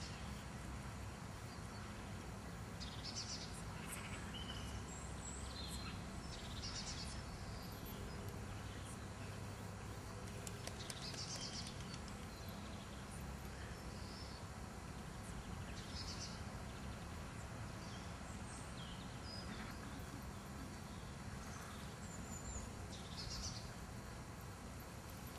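Faint outdoor background: a steady low rumble, with small birds chirping briefly every few seconds.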